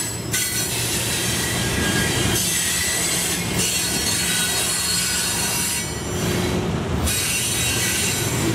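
Loaded coal hoppers rolling slowly through a turnout, their steel wheel flanges squealing in several high, steady tones over the low rumble of wheels on rail. The squeal fades and returns a few times.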